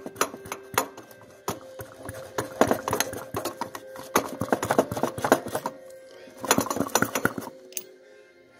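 Rapid clicking and rattling strokes in two main bursts, the sound of a hand vacuum pump being worked to pull vacuum on a Holley carburettor power valve for a leak test. A faint steady musical tone runs underneath.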